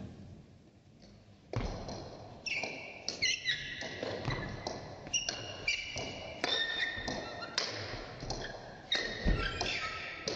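Table tennis rally: the ball clicking off bats and table in a quick back-and-forth, with sports shoes squeaking on the hall floor as the players move. It starts about a second and a half in, after a short hush.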